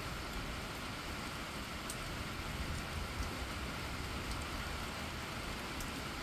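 Steady rain falling on a wet paved road and lawn: an even hiss, with a few faint ticks of single drops.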